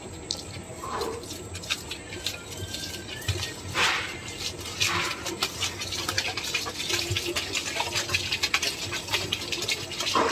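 A stream of water pouring into the steel bowl of a running bakery planetary mixer, splashing onto the turning beater and the mango biscuit dough, with many small clicks and a few louder splashes. The water is being added to the dough as it mixes.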